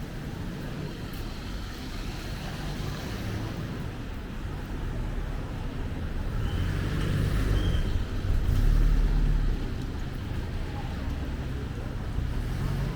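City road traffic running past: a steady low rumble of engines and tyres, swelling loudest about two-thirds through as a vehicle passes close, then easing.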